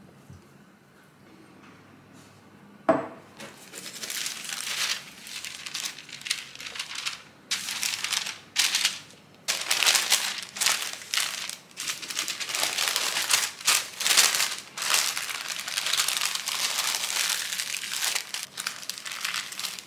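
A sheet of baking paper crinkling and rustling in irregular bursts as it is spread out and folded around a ball of pie dough. A single sharp knock comes about three seconds in, just before the crinkling starts.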